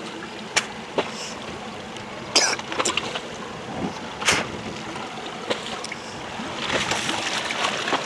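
A small boat on open sea: a steady wash of water and wind around the hull, with several sharp clicks and knocks scattered through it and the wash growing louder near the end.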